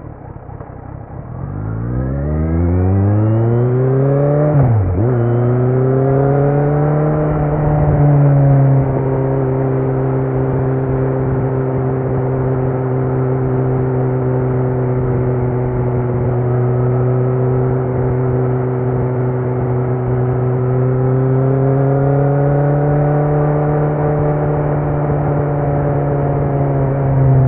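2018 Kawasaki Z900's inline-four engine through a Leo Vince muffler with no dB killer, under way. The revs sit low, then climb hard, with a sharp brief dip about five seconds in, and climb again. From about nine seconds in it holds a steady drone at an even pace, swelling slightly and easing off near the end.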